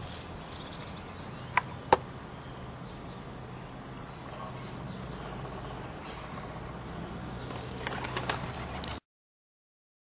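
Steady outdoor background with two short, sharp clicks about a second and a half in and a few more near the end. The sound cuts off abruptly about nine seconds in.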